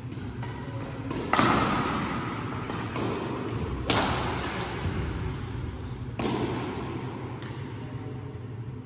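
Badminton rackets striking a shuttlecock during a rally: three loud, sharp hits about two and a half seconds apart, each echoing in the hall, with lighter hits between them. Two short high squeaks of shoes on the court floor come midway.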